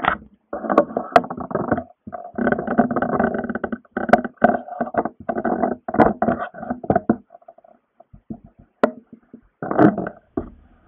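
Rubbing and knocking of hands on a small handheld camera's body and microphone, in uneven bursts with short gaps and a quieter stretch near the end.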